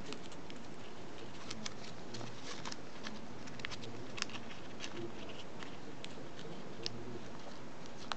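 A small sheet of origami paper being folded and creased between fingertips: scattered light paper crackles and taps over a steady hiss.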